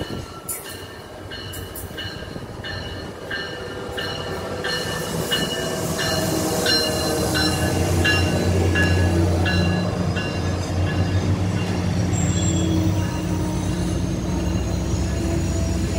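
MARC commuter train passing close by, led by an MP36PH-3C diesel locomotive. Its bell rings steadily, about two to three strokes a second, and then the diesel engine's rumble swells and peaks as the locomotive goes by. The bilevel coaches follow with rolling wheel noise and a faint high whine.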